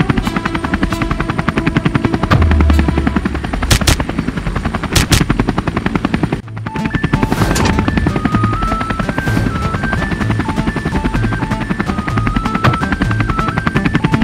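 Helicopter rotor chopping steadily as a cartoon sound effect, over background music, with two sharp hits near four and five seconds in. After a brief break about halfway through, the music carries a stepping melody.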